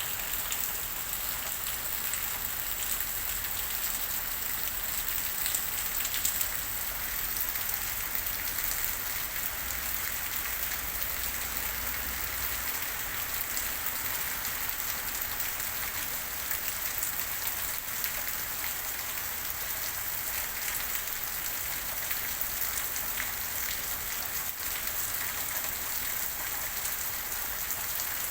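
Steady rain falling and pattering on a surface, a dense hiss of many small drop ticks. A low rumble sits underneath in the first half and fades out about twelve seconds in.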